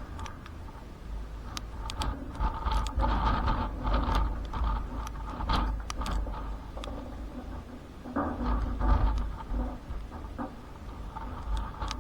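Thunderstorm wind gusting against the microphone with a heavy, uneven low rumble that swells twice, strongest about three seconds in and again near nine seconds. Scattered sharp ticks run through it.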